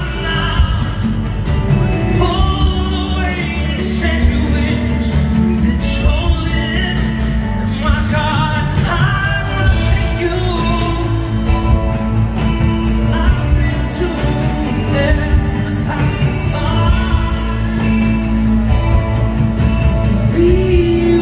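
Live band performing a song: a man singing lead over electric guitars, drums and keyboard, heard from the crowd in a concert hall.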